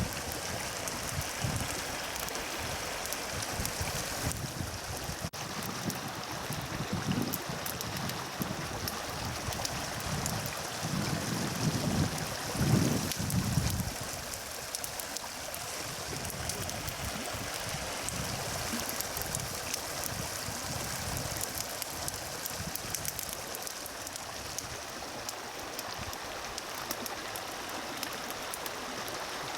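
Steady rushing of flowing water, like a mountain stream. Low gusts of wind buffet the microphone during the first half, strongest about twelve seconds in, then die away.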